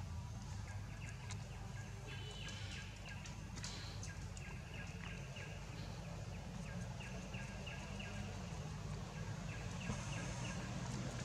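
Outdoor forest ambience: short runs of quick, high chirps that come back every second or two, over a low steady rumble.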